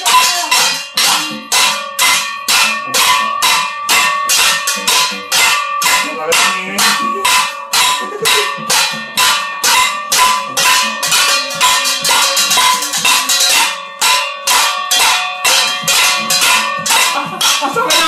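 Metal cookware being banged: steel pot lids clashed together and a steel colander and pan struck with tongs and lids, in a fast, continuous clatter of about four strikes a second with a metallic ring.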